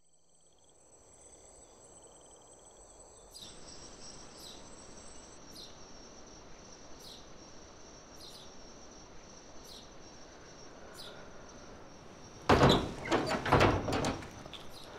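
Night insects, cricket-like: a steady high trill with a sharper chirp about once a second, over a faint hiss. Near the end comes a loud burst of several knocks and bumps lasting about two seconds.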